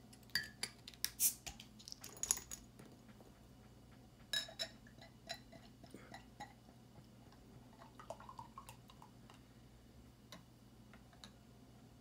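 Sharp clicks and clinks of a glass beer bottle and a pint glass being handled, then beer poured from the bottle into the tilted glass with faint glugging and fizz.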